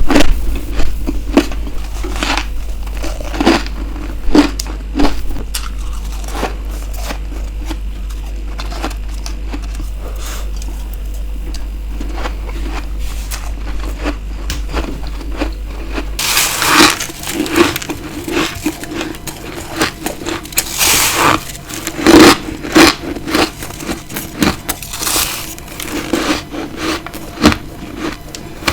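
Bites of hard ice crunching and crackling close to the microphone, many sharp crunches in a row. A steady low hum lies under the first part and stops abruptly about two-thirds of the way in, where the crunches become louder.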